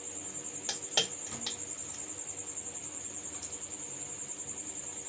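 A steady, high-pitched pulsing trill in the background, with a few faint sharp clicks about a second in.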